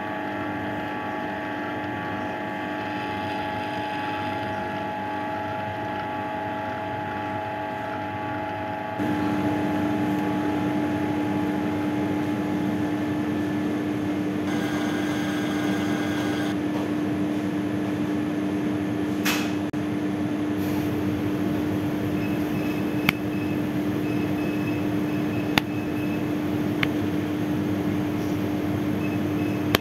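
Electric dough mixer running as its hook kneads rye caraway sourdough, a steady motor hum. About nine seconds in the hum gets louder with a stronger low tone, and a few sharp clicks come later.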